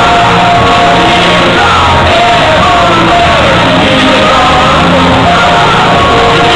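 Loud rock-style song with a lead singer, playing steadily.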